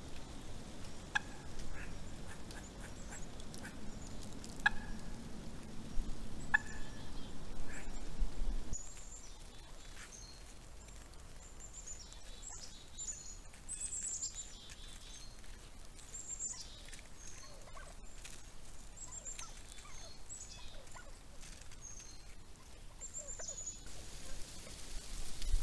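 Wild turkeys calling with short, scattered notes. After about nine seconds come many quick, high chirps, each falling slightly in pitch.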